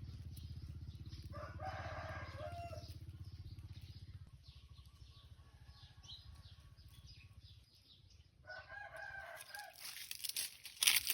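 A rooster crowing twice, about a second in and again near the end, over a low steady hum that fades out about four seconds in. A couple of sharp knocks at the very end.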